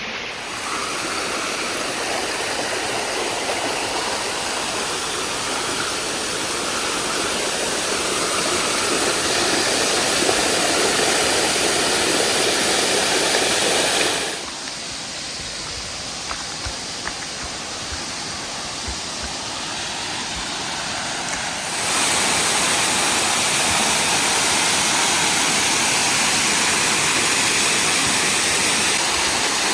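Waterfall: steady rushing of falling water, which turns quieter for several seconds about halfway through and then comes back louder.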